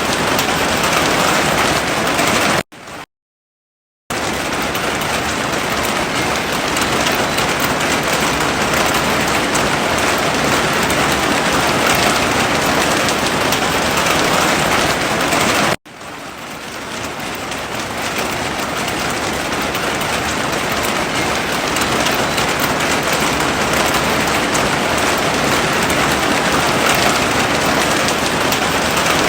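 Heavy rain falling as a dense, steady hiss. It drops out to silence for about a second near the start, and cuts off suddenly about halfway through before fading back in.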